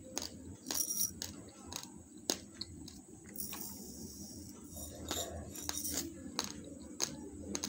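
Raw basmati rice grains crunched between the teeth: sharp, irregular cracks a few times a second, with a brief hiss about halfway through.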